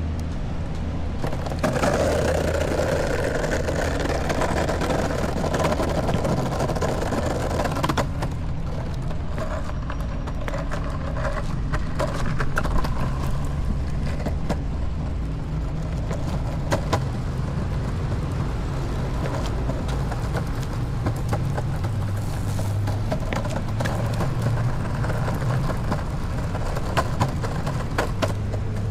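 Longboard wheels rolling over pavement with a steady rumble, and sharp clicks as the wheels run over the joints between concrete sidewalk slabs. A louder rushing noise fills the first few seconds.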